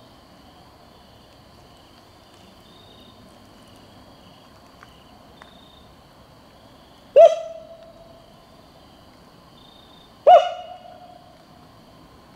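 Two loud hoots about three seconds apart, each a quick upward swoop into a short held note that fades off. Insects trill faintly and steadily behind them.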